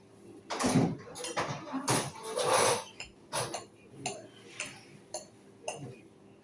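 Cutlery and dishes clinking and knocking at a meal table, in irregular clatters, loudest about half a second in and again around two and a half seconds in.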